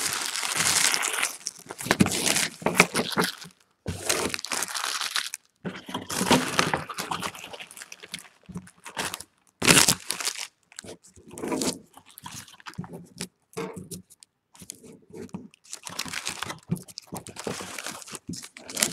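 Empty trading-card pack wrappers crinkling and a cardboard card box being handled close to the microphone, in irregular rustling bursts with short pauses, and one sharp knock about ten seconds in.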